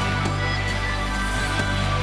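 Electronic music with a deep bass line held under steady higher tones, the soundtrack to a fireworks display.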